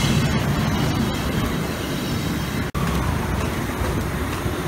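Steady rushing, rumbling noise of a wide pan of Maggi noodles and chicken boiling hard on a gas burner. The noise breaks off for an instant about halfway through.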